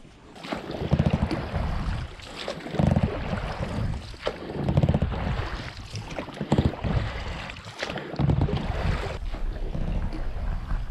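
Water rushing and splashing along the hull of an inflatable boat under way on a river, with wind noise on the microphone. The noise swells in low surges every couple of seconds.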